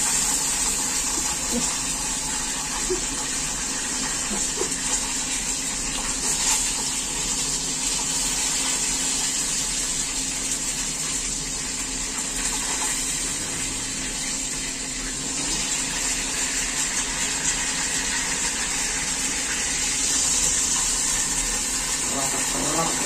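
A large whole fish deep-frying in hot oil in a wok, giving a steady sizzling hiss with a few small pops of spattering oil.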